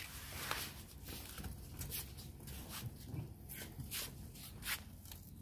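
Rustling and scraping with a few light knocks as a plastic-wrapped speaker cabinet is slid and pushed into a car's back seat.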